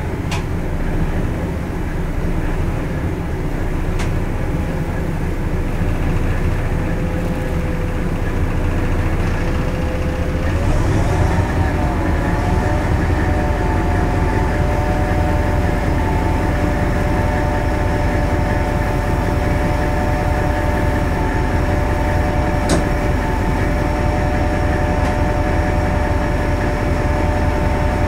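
Hastings DEMU diesel-electric train heard from its cab, the power car's English Electric diesel engine running steadily. About ten seconds in, the engine note rises and a set of steady whining tones settles in and holds. A few sharp clicks come through over the top.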